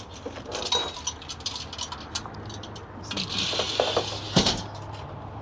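Metal tri-fold loading ramp being folded up and slid into a pickup bed: light metallic clinks and rattles, a scraping slide about three seconds in, and a sharp knock just after it.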